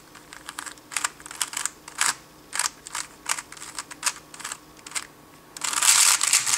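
Layers of a 3x3 speedcube clicking as they are turned, at an uneven pace, then about five and a half seconds in a fast, dense flurry of turns that is louder.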